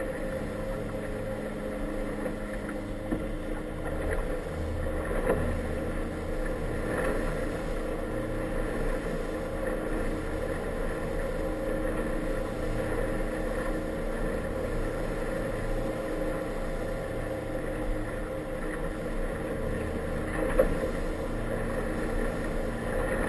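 Inflatable boat's outboard motor running steadily while under way, over the wash of choppy water along the hull. Two sharp knocks stand out, about five seconds in and near the end.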